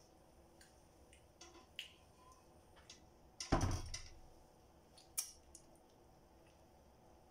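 Quiet eating sounds from someone eating fried fish by hand: small mouth clicks and lip smacks while chewing. A single louder thump comes about three and a half seconds in.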